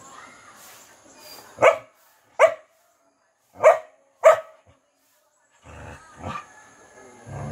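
Dog barking: four short, sharp barks between about one and a half and four and a half seconds in, then a fainter one near the end.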